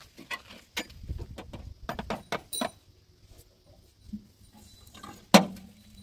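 Irregular clicks and knocks, with one louder knock about five seconds in, followed by a short low hum.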